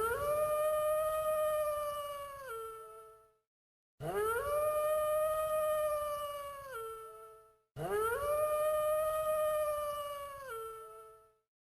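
Wolf howling: the same long howl plays three times, with short gaps between. Each howl rises quickly, holds one steady pitch, then drops at the end.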